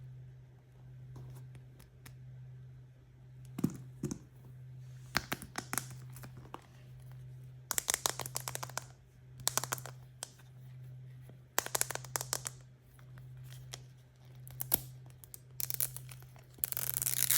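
Toy packaging being handled, crinkled in short bursts of crackles, then torn open loudly near the end. A steady low hum sits underneath throughout.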